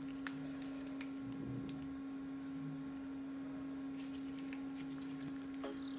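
A steady low hum with a few faint soft clicks as a lump of borax slime is squeezed and stretched by hand.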